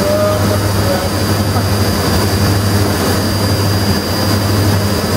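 Takumi V22A vertical machining center's spindle running steadily at a commanded 6,500 rpm, a constant low hum with a thin high whine over it; the machine sounds healthy.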